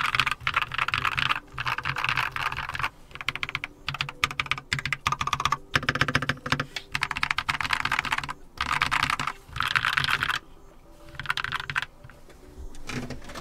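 Keychron K2 (version 3) mechanical keyboard with factory-lubricated brown tactile switches being typed on in quick runs of key clacks, with short pauses between bursts. The typing thins out near the end.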